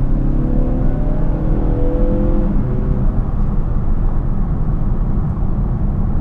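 Mazda 6 four-cylinder engine heard from inside the cabin under acceleration, its note rising for about two and a half seconds and then fading out, leaving steady tyre and road noise.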